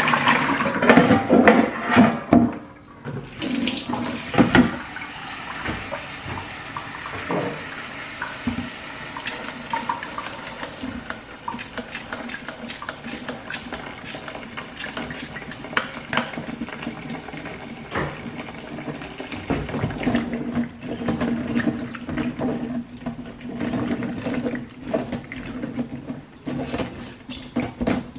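Water in a stainless steel kitchen sink while blueberries are rinsed. It pours loudly out of a mesh colander for the first few seconds, then a tap runs steadily into the colander, with small splashes and drips throughout.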